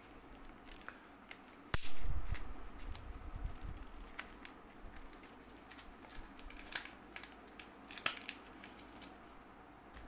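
Hands unpacking a carabiner from its paper tag and leaflet: scattered clicks and paper crinkling. About two seconds in there is one sharp knock, followed by low rumbling handling noise.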